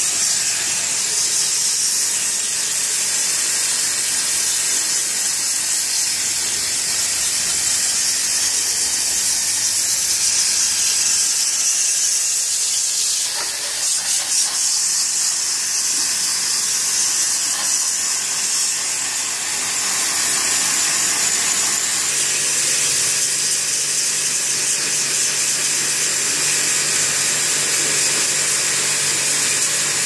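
Pressure-washer water jet spraying onto the fins of an air conditioner's outdoor condenser coil during a wash, a steady hiss.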